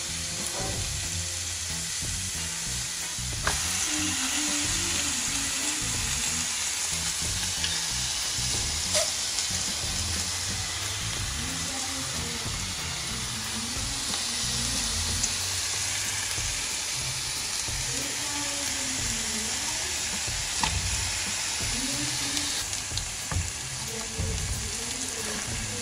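Chicken breast fillets sizzling on a hot ridged stovetop griddle: a steady frying hiss, with a few brief clicks.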